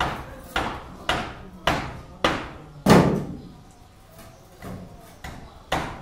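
Repeated sharp knocks on the wooden formwork as shuttering is loosened after a concrete slab pour, about two a second, each ringing briefly in the concrete structure. The sixth knock, about three seconds in, is the loudest, followed by a pause and three weaker knocks near the end.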